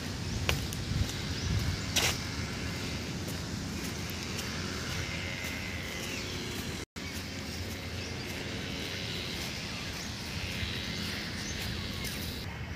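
Outdoor ambience: a steady low rumble of distant road traffic with hiss, and a few sharp clicks in the first two seconds. The sound cuts out for an instant about seven seconds in.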